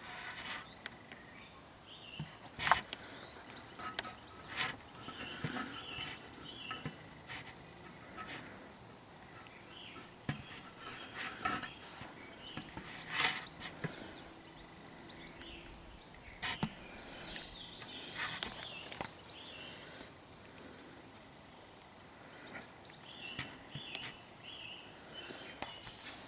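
Faint background ambience with scattered sharp clicks and short high chirps coming in small clusters.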